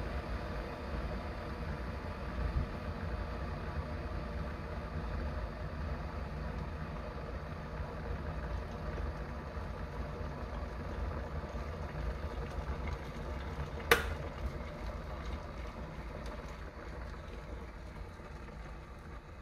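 Sunbeam Morning Frost KE6200 glass electric kettle boiling, the water rumbling and bubbling steadily. About two-thirds of the way in, a sharp click as the kettle switches itself off at the boil, and the bubbling then slowly dies down with light crackling.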